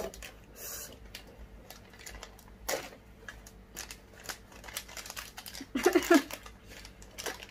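Small plastic sweet wrapper crinkling and clicking in the fingers as it is handled and opened, in scattered short ticks, with a louder rustle about three seconds in.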